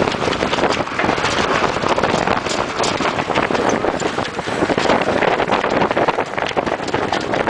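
Wind buffeting the microphone aboard a sailing boat under way, a steady loud rush with gusty fluctuations.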